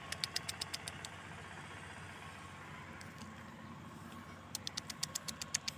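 A person calling a cat with rapid clicking calls, about eight short clicks a second, in two runs: one in the first second and one starting near the end. A steady low hum of distant traffic runs underneath.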